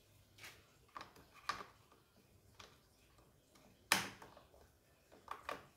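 A few light clicks and knocks as hands fit parts onto the plastic top cover of a Stihl MS 210 chainsaw, irregularly spaced, the sharpest about four seconds in.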